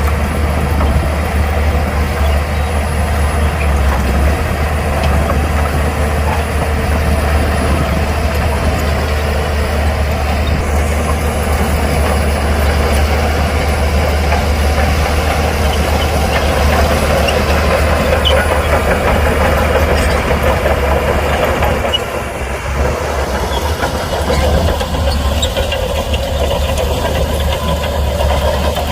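Heavy diesel engine of earthmoving machinery running steadily with a deep, continuous drone, easing off briefly about two-thirds of the way through.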